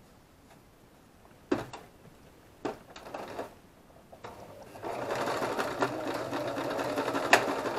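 Two sharp clicks as the Singer sewing machine's snap-on presser foot is fitted back on. About five seconds in, the domestic Singer electric sewing machine starts and runs steadily, stitching a seam.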